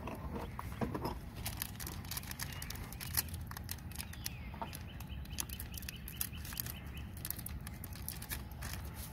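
Scissors snipping and working open a paper bag of corn flour: a string of small sharp clicks and paper crinkles over a steady low rumble.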